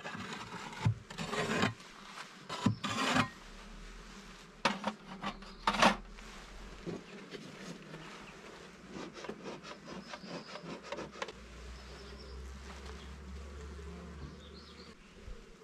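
Honeybees buzzing at an open hive while wooden hive frames are scraped and rubbed as they are pried apart and lifted. The scraping is loudest in a few strokes during the first six seconds, followed by lighter clicks and knocks.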